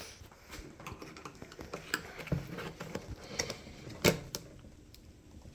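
Irregular light clicks and taps of pry picks and the plastic headlamp housing being handled while working at the lens clips, with one sharper click about four seconds in.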